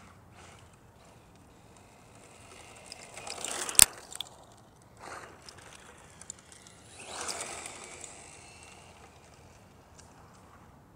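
Tamiya TA02 electric radio-controlled car running on asphalt, its motor and tyres swelling up as it nears and ending in one sharp crack about four seconds in, then passing again around seven seconds.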